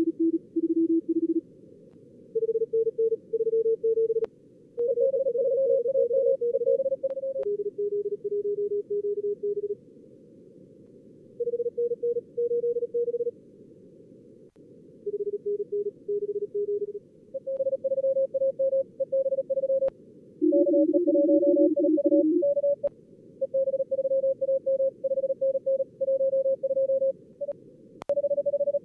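Computer-simulated Morse code (CW) contest traffic from a logging program's practice mode: fast keyed tones at several pitches between about 300 and 600 Hz, in quick groups with short gaps and sometimes two signals at once, over a narrow band of receiver hiss. A few faint clicks sound between the groups.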